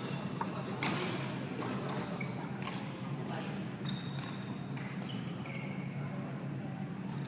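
Badminton hall ambience: a steady low hum with scattered sharp knocks of rackets hitting shuttlecocks, short high squeaks, and faint voices from the courts.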